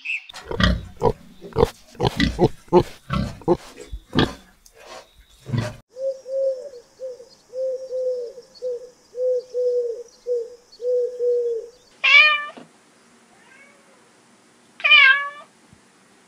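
Rabbits chewing greens, a string of crisp irregular crunches; then a run of short low notes repeated about twice a second; then a kitten meowing twice near the end.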